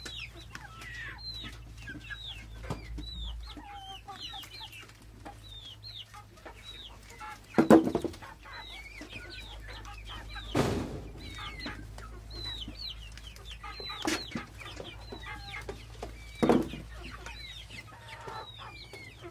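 Animals calling: a steady run of short, high, falling chirps, broken by four louder, lower calls or squawks scattered through.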